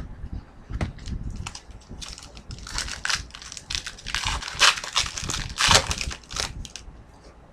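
Crinkling and crumpling of a trading-card pack's foil wrapper, with the clicks and rustle of hockey cards being handled. The crinkling comes in uneven spurts and is busiest in the middle.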